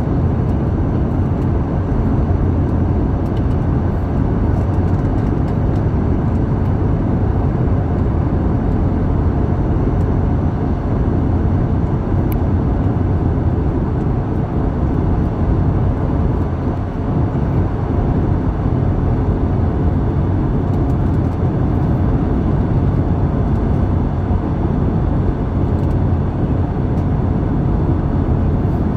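Steady cabin noise of a jet airliner in flight, heard from inside the cabin: an even, deep rush of engine and airflow, with a faint steady hum.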